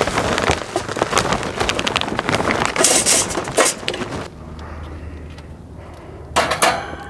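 Charcoal pouring from a bag into a metal chimney starter: a dense rattling clatter of lumps hitting the sheet-metal cylinder and each other, easing off about four seconds in. A short loud burst of noise follows near the end.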